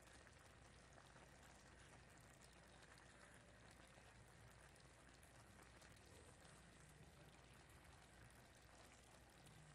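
Faint bubbling crackle of a pan of spaghetti and sausage in tomato sauce simmering on very low heat under melting cheese slices.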